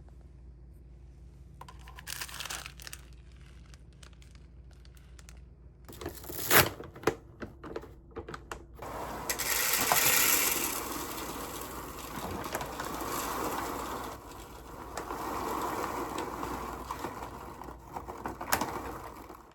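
Crinkling, rustling and tearing of packaging being handled, with a cluster of sharp clicks and knocks about six to nine seconds in and another click near the end.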